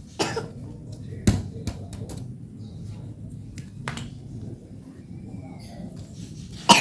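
A few scattered sharp taps and knocks, the loudest a thump about a second in, over steady low background noise.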